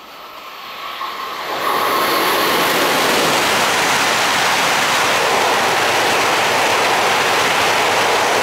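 Tohoku Shinkansen bullet train passing through the station at speed: a rushing noise of air and wheels on rail that builds over the first two seconds, then holds loud and steady as the train goes by.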